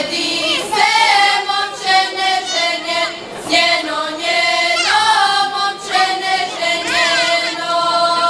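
Female vocal group singing a Serbian folk song unaccompanied, in long held phrases that break about once a second.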